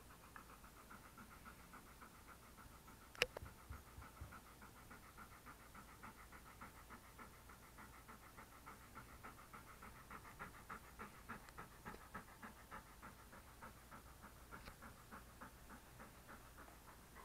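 English Cream Golden Retriever panting softly, with quick, even breaths several times a second. A single sharp click sounds about three seconds in.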